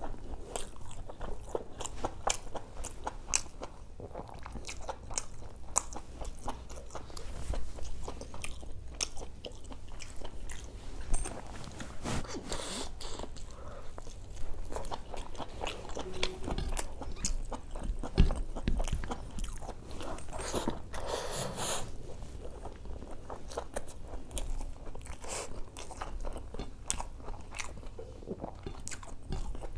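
Close-miked chewing and biting of spicy mutton boti (large intestine) with khichdi, eaten by hand: a dense run of wet mouth clicks and smacks, with a few louder bites about 11 and 18 seconds in.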